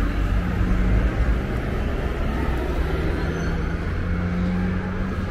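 City street traffic: a steady low engine rumble and hum from buses and cars on the road alongside.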